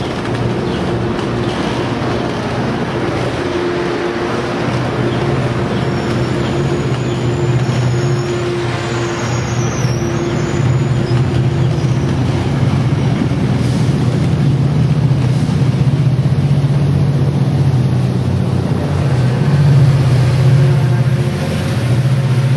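A large diesel engine running steadily, a low drone that grows a little stronger in the second half, with a steady higher hum over it that stops about halfway through.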